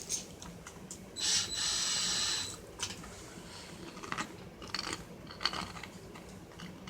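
Power drill driving a small screw: a steady motor whine starting about a second in and lasting about a second and a half, followed by light clicks and handling of small parts.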